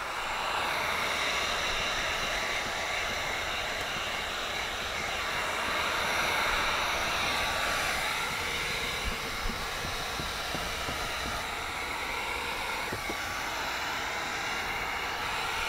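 Electric heat gun blowing steadily, a continuous rush of hot air, as it is run along the edges of window tint film on car door glass to set them. A couple of faint taps come about nine seconds in.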